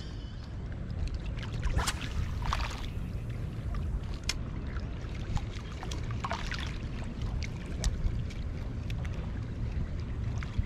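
Steady low rumble of wind and small waves lapping at the shoreline, with short splashy bursts about two seconds in and again past six seconds, and scattered light clicks.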